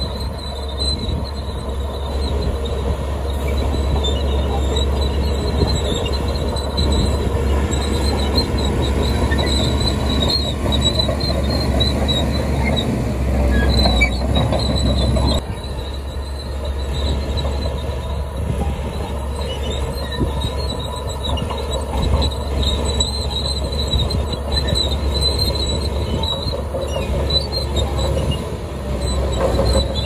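Caterpillar D3K2 crawler dozer at work pushing a load of dirt and rock: its diesel engine runs steadily under load while the steel tracks squeal and clank.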